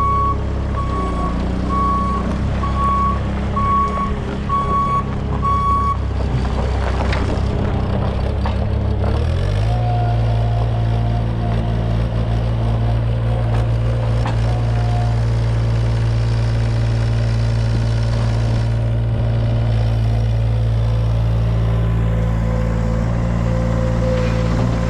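Bobcat S70 skid steer's 1.0-litre Kubota three-cylinder diesel running, with a warning beeper sounding about once a second for the first six seconds. About nine seconds in the engine speeds up and holds a higher steady speed.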